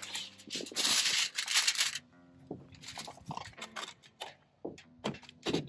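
Aluminium foil crinkling loudly for about two seconds as a whole catfish is laid onto the sheet, then stopping abruptly. After that come light scattered rustles and taps of handling over quiet background music.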